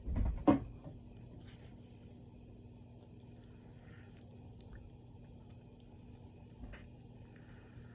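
Close-miked eating of a steak and cheese sandwich: a loud low thump and mouth sound in the first second, then soft, sparse chewing clicks over a steady low hum.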